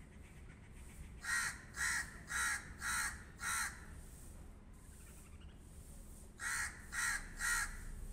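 Crow cawing: five harsh caws in a quick even series about half a second apart, then after a pause of about three seconds, three more.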